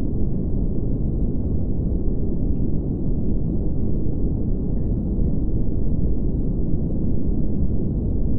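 A steady low rumble without breaks, with a faint thin high tone held over it.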